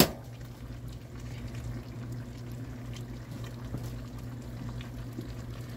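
Squash simmering in its water in a skillet over high heat: a steady bubbling hiss. There is a sharp clack at the very start and a few light clicks as metal tongs stir the slices.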